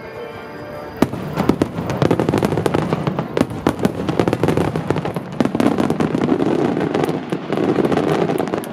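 Wide starmine fireworks barrage: about a second in, a dense run of rapid sharp bangs and crackling begins and keeps going without pause. Faint background music is heard before the barrage starts.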